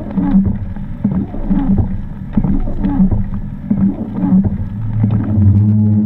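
A first-generation Subaru Forester's flat-four engine, heard from inside the cabin as the car crawls over a rough, wet track, with frequent short knocks and rattles from the body jolting over ruts. About five seconds in the engine note grows stronger and holds steady.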